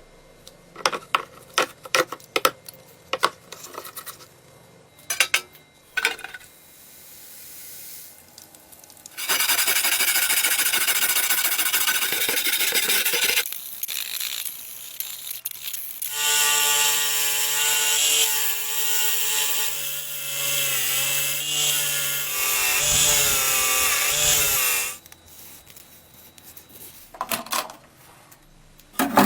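Metal tool work on a rusty knife. First come sharp scraping and tapping clicks, then a power tool runs twice. The second run has a whining motor whose pitch wavers as it loads up.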